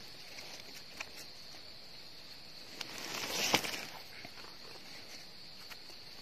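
A steady, high insect drone, with a crackling rustle of dry leaf litter about three and a half seconds in as a hand digs a mushroom out of the forest floor.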